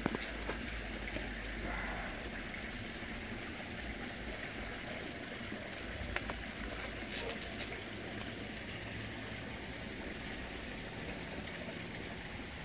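Steady rushing hiss like running water, with a few brief sharp clicks about seven seconds in.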